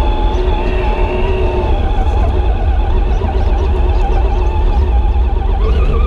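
Electric motor and gear whine of a scale RC crawler truck working its way up over roots and dirt, heard from its own onboard camera; the whine's pitch wavers with throttle and load over a steady low rumble of chassis vibration.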